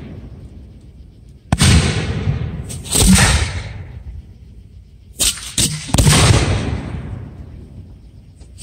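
Aerial fireworks shells bursting: a sharp bang about a second and a half in, another at about three seconds, and a quick cluster of three just after five seconds, each dying away slowly.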